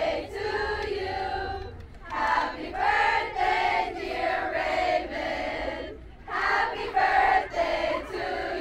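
A group of girls chanting a cheer together in unison, in long held phrases with brief breaks about two and six seconds in.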